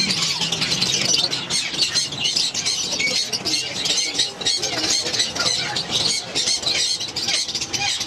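A crowd of caged small finches, Java sparrows among them, chirping and twittering all at once in a dense, unbroken chatter of high notes.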